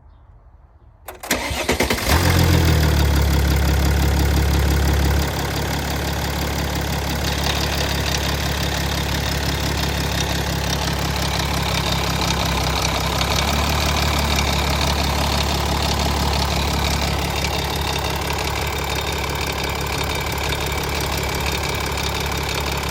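Mercedes GL 350 CDI's 3.0 V6 diesel engine started about a second in, running at a fast idle for a few seconds and then settling to a steady lower idle. The owner finds the engine's sound strange.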